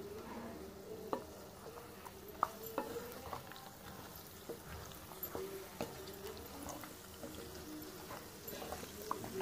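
A plastic spatula stirring pieces of fried mutton in a non-stick frying pan: scattered scrapes and clicks of spatula on pan over a faint sizzle.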